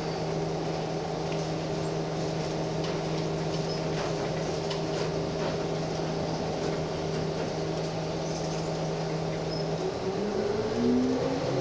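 Gillig Phantom transit bus's diesel engine running at a steady pitch as the bus rolls along at low speed, heard from the driver's compartment. About ten seconds in, the engine note rises as the bus accelerates.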